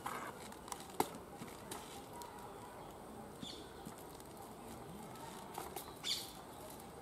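Handling noise as a toddy tapper's climbing loop and gear move against a palm trunk: a sharp knock about a second in, and a short rustling scrape near the end.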